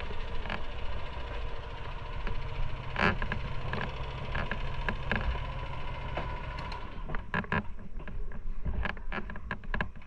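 Motorcycle engine running slowly at low revs as the bike is manoeuvred into a parking spot, then shutting off about seven seconds in. A string of clicks and knocks follows.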